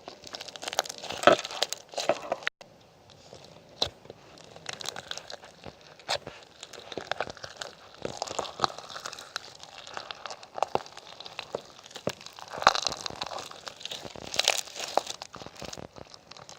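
Irregular crinkling and crunching with many sharp clicks, in uneven clusters that come and go, the loudest about a second in and again past the middle.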